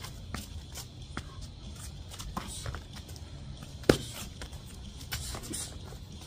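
Kickboxing sparring: one sharp smack about four seconds in as a kick or knee lands on padded shin guards or gloves, among lighter taps and scuffs of footwork, over a steady low rumble.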